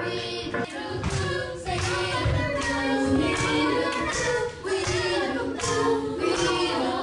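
Music: a song with sung vocals over a steady beat.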